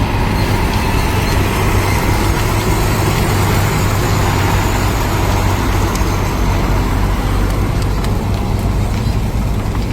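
Heavy diesel engine running steadily, a constant low drone.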